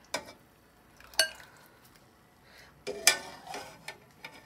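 A metal skimmer clinking against a steel soup pot and a plate as boiled whole mushrooms are lifted out of the broth: a few sharp clinks, some ringing briefly, the loudest about three seconds in.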